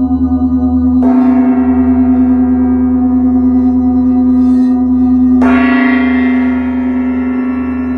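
A crystal singing bowl's steady, pulsing hum, with two struck ringing strikes about a second in and about five and a half seconds in, each dying away slowly with many overtones.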